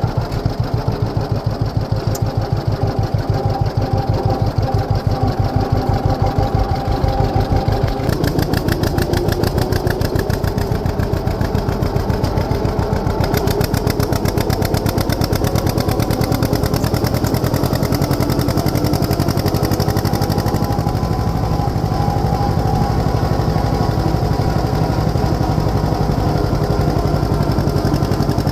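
Diesel engine of a John Deere 6300 tractor running steadily under load while it pulls a small square baler at work.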